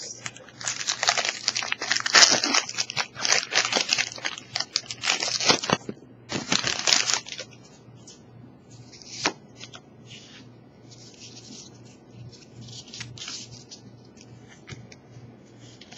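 Foil booster-pack wrapper of Pokémon trading cards being torn open and crinkled: loud rustling for the first seven seconds or so, then softer, scattered crinkles.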